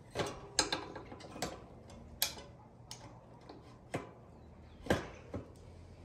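Irregular light clicks and metallic taps of small parts and a tool being handled while the bike's disc brake caliper is taken apart, about eight sharp clicks unevenly spaced.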